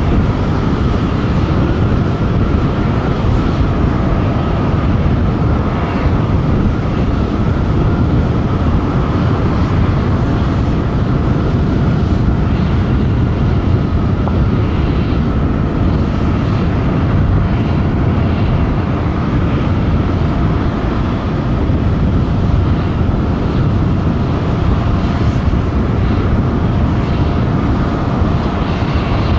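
Boeing 737-800's CFM56-7B jet engines running: a steady, unbroken rumble with a faint steady whine over it.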